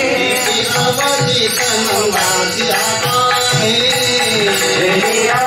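Live Marathi devotional bhajan to Vitthal: men singing a wavering melody to small brass hand cymbals and a drum keeping the beat.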